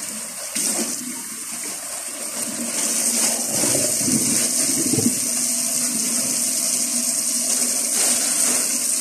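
Kitchen tap running into a sink, a steady gush of water that grows louder about three seconds in.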